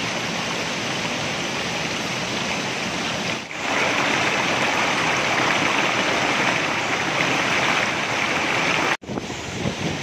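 Water rushing and splashing down a rocky cascade below a waterfall, a loud steady noise. It dips briefly about three and a half seconds in, then cuts off sharply near the end and comes back a little different.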